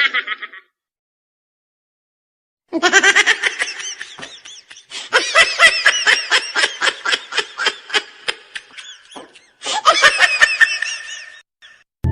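High-pitched human laughter in quick repeated bursts, starting about three seconds in. It breaks off briefly and then resumes until shortly before the end.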